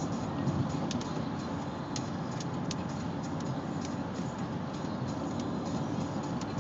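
Heavy rain falling steadily during a thunderstorm, a constant low rushing with scattered sharp ticks of drops striking close by.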